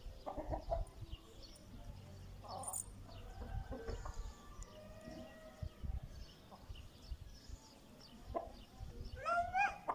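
Baladi (local-breed) hens and a rooster making soft, scattered clucks while foraging, with a louder call near the end.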